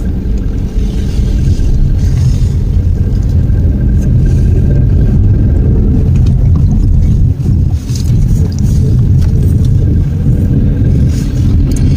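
Citroen C3 Aircross driving on the road: a steady, loud low rumble of engine and road noise.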